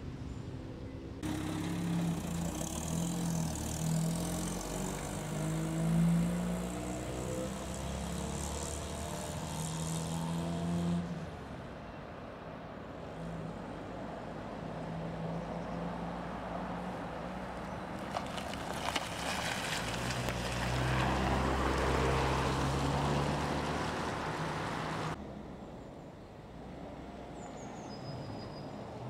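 Cars driving past one after another, their engines changing pitch as they accelerate and shift gear, heard in several separate passes; it goes quieter near the end.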